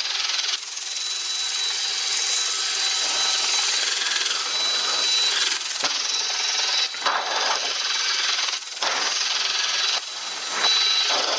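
Wind and rescue-helicopter noise rushing over a crew intercom microphone at the open cabin door. It is a steady hiss with a faint high whine, cutting sharply between louder and quieter stretches several times.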